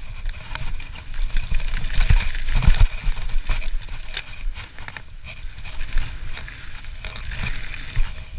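Trek Slash full-suspension mountain bike descending a gravel trail at speed: a steady rumble of tyres over gravel and wind buffeting the microphone, with frequent clicks and rattles from the bike over the rough surface.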